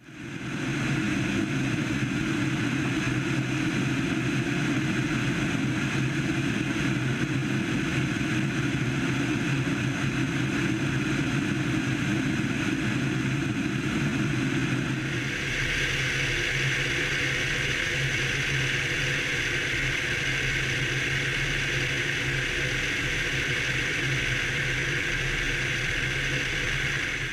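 Piper PA28-161 Warrior II light aircraft in flight: its four-cylinder Lycoming engine and propeller drone steadily with rushing air, picked up by a camera mounted outside on the wing. About halfway through the tone shifts suddenly, the low drone dropping back and a higher hiss coming forward.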